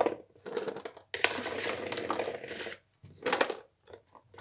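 Whole black olives scooped from a plastic bowl with a plastic scoop and poured into a clear plastic jar, rattling and clattering against the plastic. There is a short run at the start, a longer run of about a second and a half a second in, and a brief burst about three seconds in.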